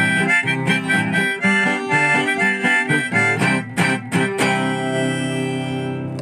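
Instrumental music playing out to the end of a song: a busy passage, then from about four and a half seconds in a held final chord that slowly fades.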